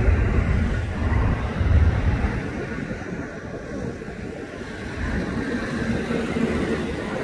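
Twin rear-mounted turbofan engines of a Gulfstream G550 business jet running as it moves down the runway: a steady rumble that is loudest in the first two seconds, then eases slightly.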